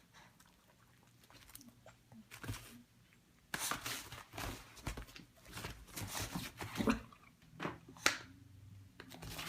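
A dog making a string of short, noisy sounds with its nose and mouth: a quick cluster in the middle and one sharp one near the end.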